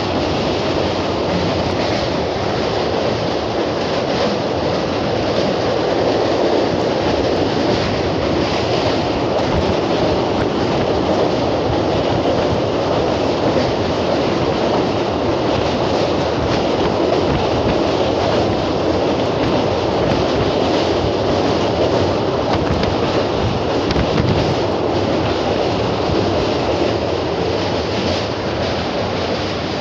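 Passenger train running over a steel truss railway bridge: a steady, heavy rumble and clatter of wheels on the bridge, heard from an open coach door.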